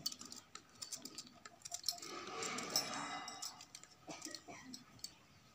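Small knife clicking and scraping as it cuts cauliflower florets into small bits, with bangles clinking on the wrists. A brief muffled hazy noise rises and falls around the middle.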